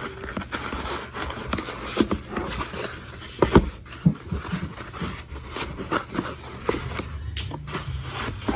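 Handling of a cardboard box and foam packing inserts: irregular scraping, rustling and knocks as a laptop is fitted into the box, with the sharpest knock about three and a half seconds in.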